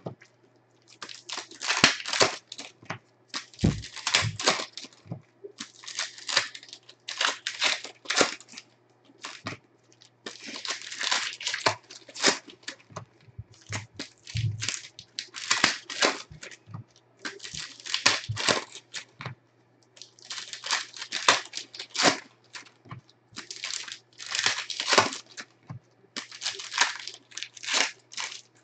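Foil trading-card packs crinkling and tearing as they are ripped open and handled, in repeated short bursts of crackling.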